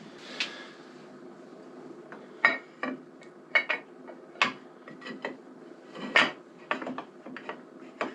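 Irregular metallic clinks and taps of hand tools working the top cover off a Harley-Davidson Evolution engine's cylinder head, about a dozen sharp knocks from about two and a half seconds in, over a faint steady hum.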